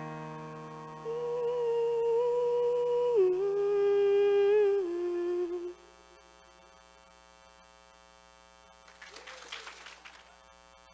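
A young female solo singer holds the song's final note over a fading piano chord, stepping down in pitch twice before it ends about halfway through. Near silence follows, with a faint brief noise near the end.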